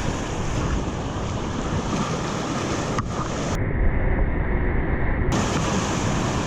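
Rushing whitewater rapids around a tandem kayak, with wind buffeting the microphone. There is a brief knock about three seconds in, and the sound turns muffled for almost two seconds midway.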